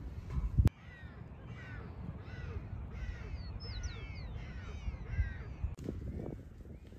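Magellanic penguins calling: a quick run of repeated, arching calls, about two or three a second, with lower calls near the end. Wind buffets the microphone for a moment at the start.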